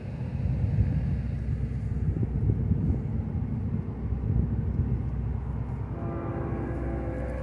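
Low, pulsing rumble of an approaching freight train, growing louder about a second in. A distant train horn starts sounding as a held chord about six seconds in.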